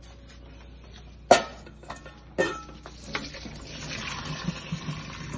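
Two sharp knocks, then hot noodle water poured from a pan into a plastic colander in a steel sink, splashing steadily for the last second and a half as the egg noodles are drained.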